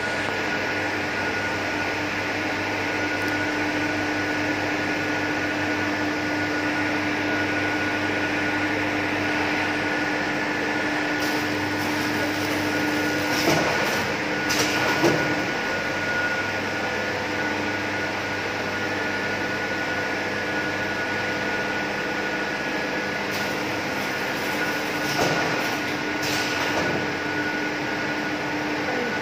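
Automatic side sealing machine running: a steady mechanical hum with a couple of held tones. A few short knocks come around the middle and again later on as the mechanism cycles.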